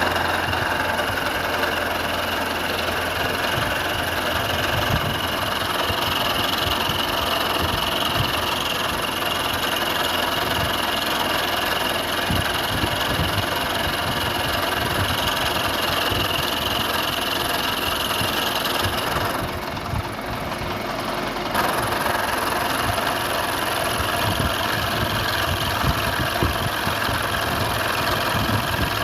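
Machine-shop machinery running steadily with a constant high whine and rumble, as when metal is machined for a milling vice. About two-thirds of the way through, the whine drops away for a couple of seconds and then comes back.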